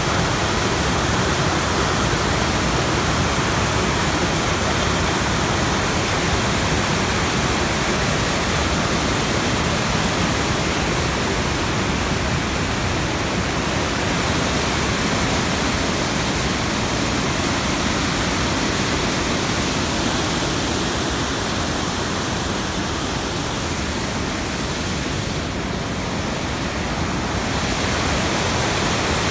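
Water pouring over a concrete weir at a hatchery water intake: a steady, loud rush of falling white water.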